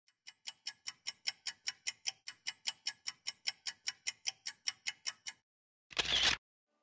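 Clock-like ticking sound effect, quick and even at about five ticks a second, which stops a little over five seconds in. A short noisy burst of about half a second follows near the end.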